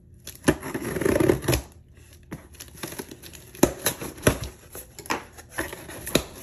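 A knife slicing through the packing tape along a cardboard box's seam, a rasping cut of about a second near the start. Then a series of sharp knocks and scrapes as the cardboard flaps are pulled up and folded open.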